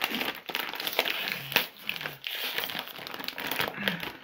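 A plastic bag of Dontacos taco chips crinkling and crackling with many short, sharp crackles as it is pulled open by hand.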